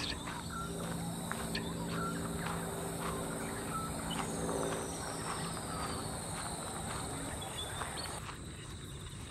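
Outdoor ambience dominated by a steady, high-pitched drone of insects, with a few faint, short bird chirps scattered through it.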